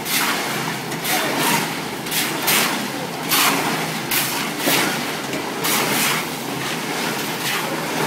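A drum concrete mixer running with a steady engine hum, with irregular scraping and slopping of wet concrete over it.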